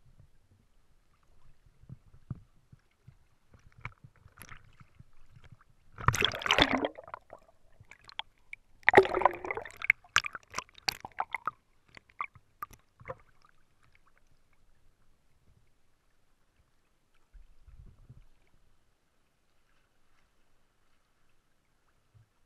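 Water sloshing and splashing against a waterproof action camera held at the surface, with two loud splashy rushes about six and nine seconds in and scattered small crackles of water around them.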